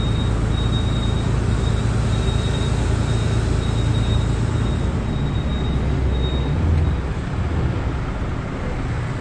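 Mercedes-Benz Actros MP5 truck heard from the cab while crawling slowly, with the engine and road noise running low and a faint high-pitched squeak that keeps coming and going. The driver takes the squeak for a brake pad lightly rubbing the disc at low speed. It stops when he touches the brake lightly and is gone at higher speed.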